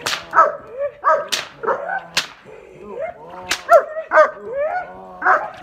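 German shepherd barking repeatedly and excitedly, about two barks a second, while straining on its leash at a man facing it in guard-dog training.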